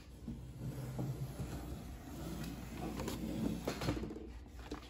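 Handling noise: soft rustling with a few light knocks, the sharpest about three and a half to four seconds in, as a phone camera is moved and a paperback book is held up to it.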